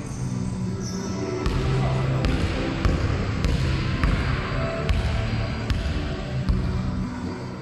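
A basketball dribbled on a wooden sports-hall floor, sharp bounces coming about once every 0.7 seconds from about a second and a half in.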